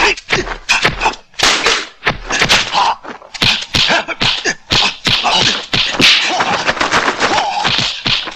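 Rapid run of martial-arts film punch and block sound effects, sharp whacks and thuds several times a second, mixed with the fighters' shouts and grunts.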